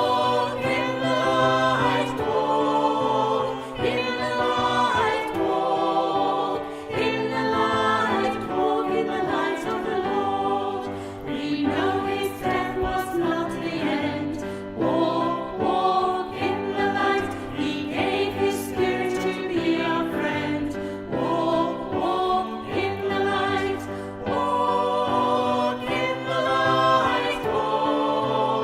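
Choir singing a sacred piece with sustained, wavering notes over a steady low accompaniment.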